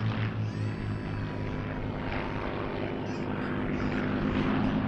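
Two Supermarine Spitfire Mk IX fighters' Rolls-Royce Merlin V12 engines running together in formation flight overhead, a steady deep drone.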